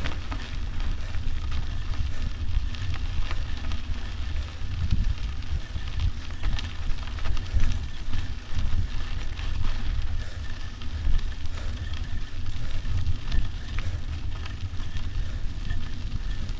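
Wind rumbling on the microphone of a moving mountain bike, over a constant patter of small crackles and rattles from the tyres and bike rolling over a rough dirt-and-gravel track.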